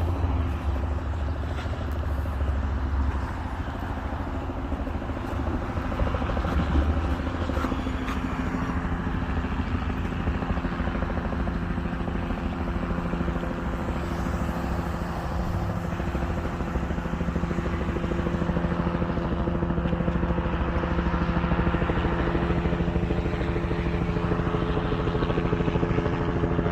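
Helicopter flying nearby: a continuous engine and rotor drone with a low rumble and a steady hum.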